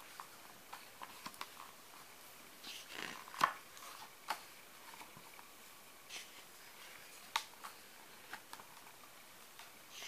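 Thick pages of a hardbound photo book being turned by hand: short paper rustles and light clicks, with a louder rustle ending in a sharp snap about three and a half seconds in.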